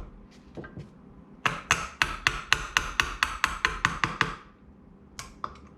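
A quick run of about a dozen sharp metallic taps, roughly four a second, then two or three more near the end, as the KitchenAid mixer's planetary gear assembly is worked onto its shaft so the gear meets the teeth.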